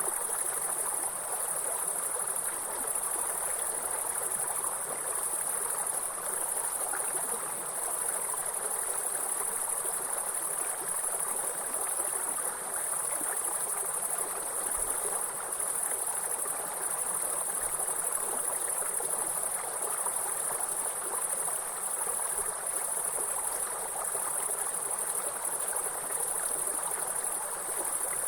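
Continuous high-pitched shrill of chirping insects over the steady rush of running stream water.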